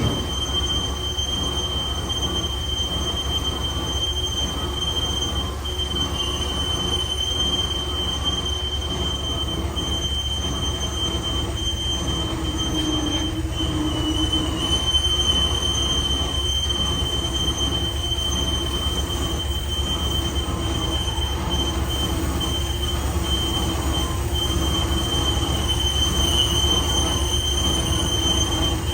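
Heavy boring machine cutting a steel pipe: a steady high-pitched squeal from the cutting tool on the steel, wavering slightly, over the low hum of the machine's drive.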